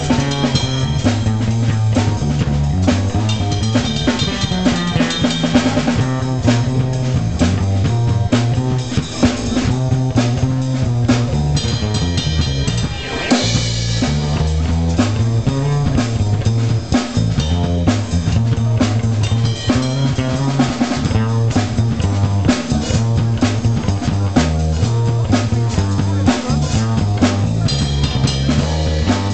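Live jazz band playing a funk groove: drum kit with snare and bass drum over a repeating bass line on an acoustic bass guitar.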